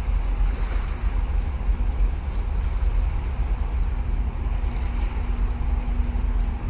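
Wind rumbling on the microphone over a faint steady hum from a large container ship moving past close by.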